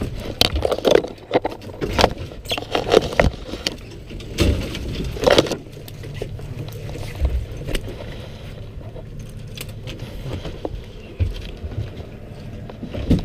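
Irregular knocks and clicks from rod, reel and boat handling during the fight with a hooked fish, thick in the first half and sparser later, over a steady low rumble.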